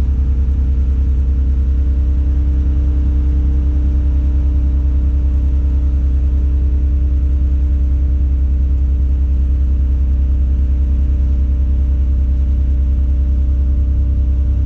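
Diesel engine of a Tadano 180G-5 all-terrain crane running at a steady speed, heard from inside the cab: an even low drone with a faint steady hum above it and no change in pitch or level.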